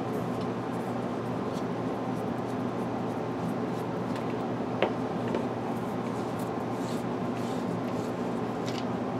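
Faint clicks and ticks of a 4Sevens Quark flashlight being handled as its head is unscrewed and swapped, over a steady hum. One sharper click comes about five seconds in.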